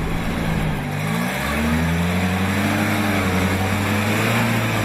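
UAZ off-road truck's engine driving through deep mud and water. It rises in pitch about a second in, then holds a steady pull.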